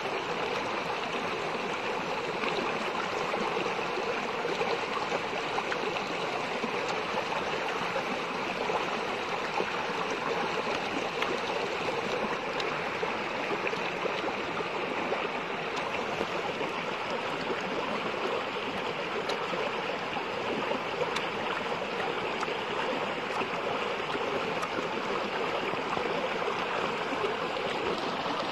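Shallow stream running over rocks, a steady, unbroken rush of water.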